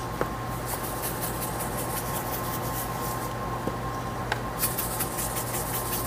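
Salt shaken from a shaker over raw meat slices on a cutting board: short bursts of grains rattling, about a second in and again between four and five and a half seconds, with a couple of light clicks, over a steady low hum.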